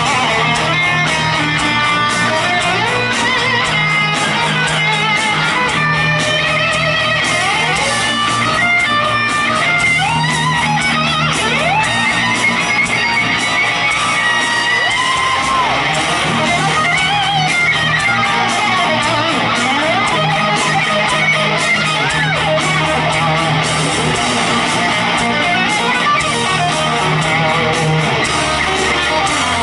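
Rock band playing live: an electric guitar solo with string bends over sustained bass notes and the band, recorded loud from the audience.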